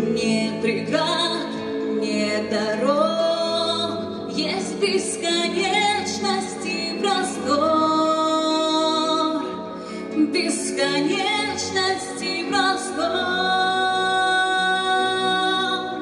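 A woman singing a song into a microphone over instrumental accompaniment, holding long notes and sliding between pitches.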